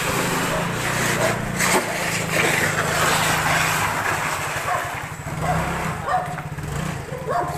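Motor scooter's small engine running steadily as it is ridden slowly, with voices in the background.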